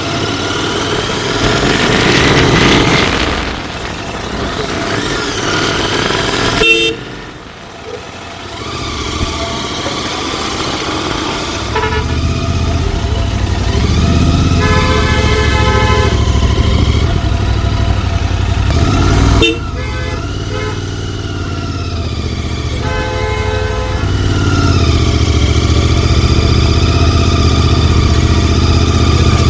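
Royal Enfield Continental GT 650 parallel-twin engine and exhaust under way, its pitch rising and falling as the bike accelerates and eases off. Horns honk over it: a short toot about seven seconds in, a longer honk around the middle, and another a little later.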